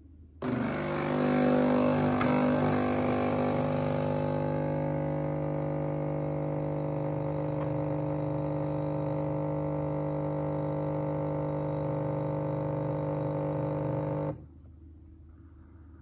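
Nespresso Lattissima One's vibration pump running as it brews espresso into the frothed milk. It is a steady electric hum, louder and hissy for the first few seconds, and it cuts off suddenly near the end when the shot is done.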